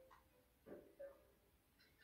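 Near silence with faint, sparse background music notes.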